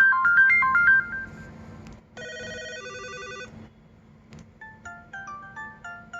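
LG Lotus flip phone ringtones previewed one after another. A loud, quick melody of short electronic notes plays for about a second, then a brief chord-like tune, then another melody of short notes near the end, each cut off after a second or two.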